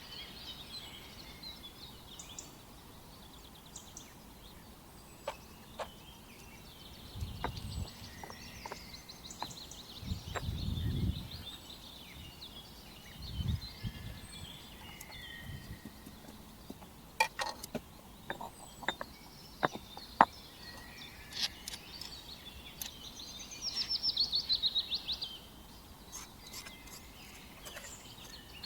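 Small birds chirping, with a fast trill near the end. Scattered sharp clicks and knocks through the middle, and a few short low thuds.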